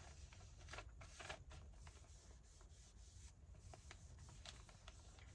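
Faint rustling and light clicks of paper and card being handled and worked, with a low hum beneath.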